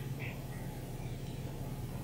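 Quiet room tone with a steady low hum, and a few faint short squeaks right at the start from a marker writing on a glass lightboard.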